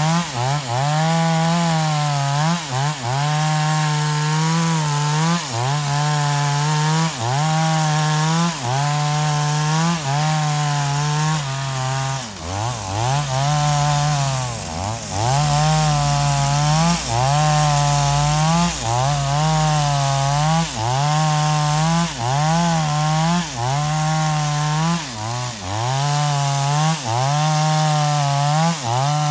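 Stihl two-stroke chainsaw ripping a log lengthwise, the engine running at high revs and dipping in pitch about once a second as the bar is pushed into the cut, then recovering. About halfway through it slows further for a few seconds before picking back up.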